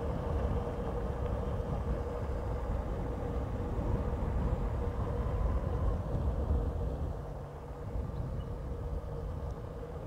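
Motorcycle engine running steadily on the move, with rumbling wind and road noise. It quietens a little about seven seconds in.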